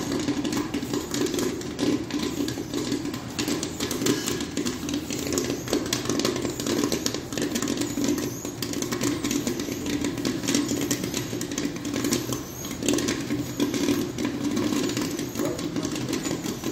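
Electric popcorn machine popping a batch of corn: a dense, rapid crackle of kernels bursting in the kettle, over a steady machine hum.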